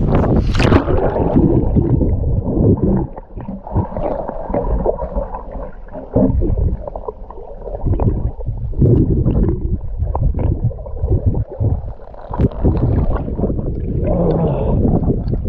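Muffled underwater noise from an action camera held below the sea surface by a diving swimmer: low water rumble with small knocks and bubbles. There is splashing as the camera goes under about a second in, and again as it comes back up near the end.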